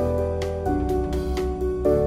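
Background music: gentle piano-led instrumental with held chords and a soft steady beat.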